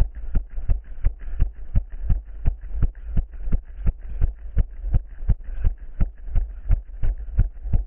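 A runner's footfalls thudding about three times a second, jolting a body-worn camera, over a steady low rumble.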